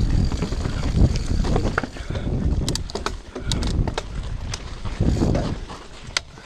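Mountain bike riding down a dirt singletrack: tyres rolling over dirt and roots with wind buffeting the microphone in rough surges, and a run of sharp clicks and knocks from the bike rattling over bumps about halfway through.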